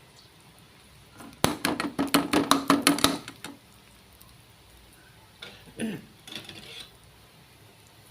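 A metal utensil clinking and tapping against a wok or pan, a quick run of about ten strikes over nearly two seconds with a slight ring, then a few softer knocks near the end.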